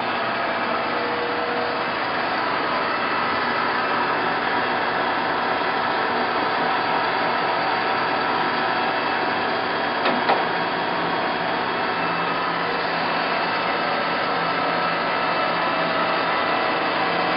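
Acraturn LS-400 engine lathe running steadily under power, its 5 horsepower motor driving the spindle. Two short clicks sound about ten seconds in.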